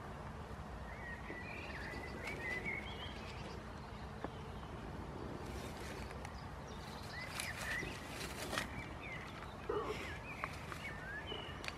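A goat grazing, tearing and chewing grass with crisp clicks, most of them between about five and a half and eight and a half seconds in, while small birds chirp over a steady outdoor background.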